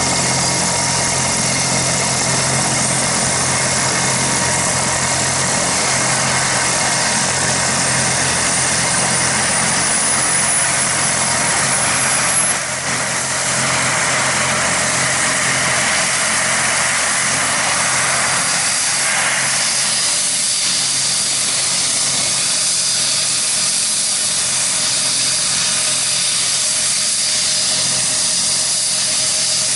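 Kazan Ansat helicopter's twin turboshaft engines and main rotor running on the ground before takeoff: a steady turbine whine and rush. A faint high whistle rises over the first dozen seconds, and the low drone eases about two-thirds of the way in.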